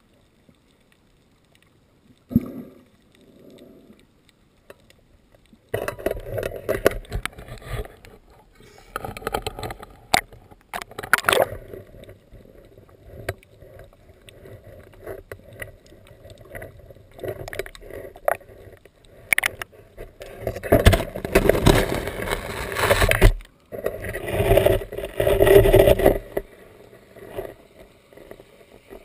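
Rough, irregular noise of a small boat out on the water, coming in loud spells of one to three seconds with quieter gaps between. It is quiet for the first few seconds, apart from a short thump.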